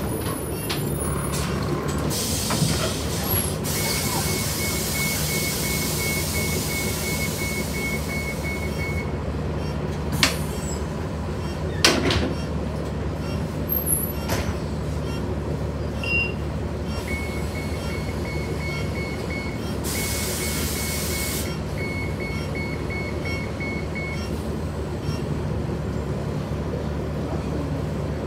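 City transit bus with its engine running, heard from inside the cabin: two spells of air hissing, each with a rapid, evenly repeating beeping warning, and two sharp knocks in between.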